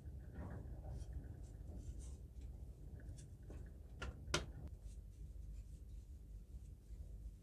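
Bristle paintbrush stroking a wet finish onto a wooden handle: faint, soft scratchy brushing. Two sharp clicks about four seconds in, the second the loudest.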